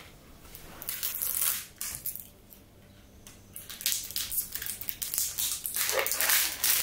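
Plastic packaging of an air-freshener bead container crinkling and crackling as it is handled and its peel-off top seal is worked at by hand. There is a short spell about a second in, a lull, then near-continuous crackling from about three and a half seconds on.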